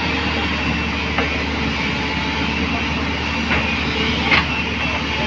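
JCB backhoe loader's diesel engine running steadily while it works, with a few short knocks or clanks about a second in and again around three and a half and four and a half seconds in.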